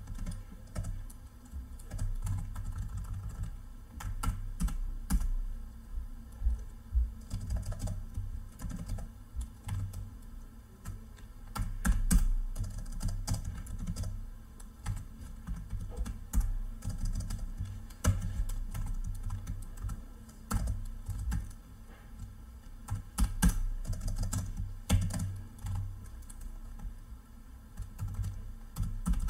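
Typing on a computer keyboard: irregular runs of keystrokes with short pauses, some keys struck harder than others.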